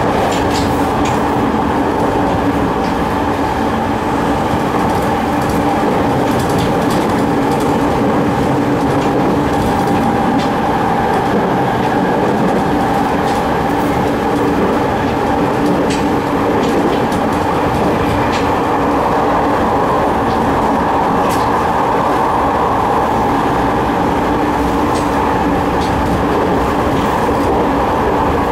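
Running sound inside a JR 209 series 3100 electric train car with MT73 traction motors and GTO-VVVF control, cruising at a steady speed. It is a steady rumble and hum whose pitch holds level, with wheel clicks over the rail joints now and then.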